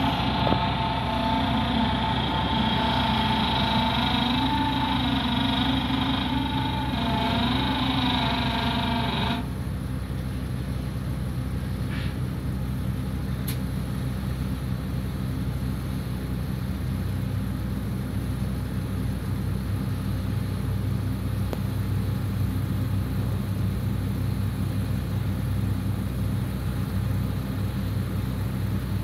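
Engines of heavy farm vehicles running steadily with a low hum during the unloading of a tractor-drawn sugarcane wagon into a cane truck's trailer. For about the first nine seconds a higher, wavering sound with several tones sits on top and cuts off suddenly.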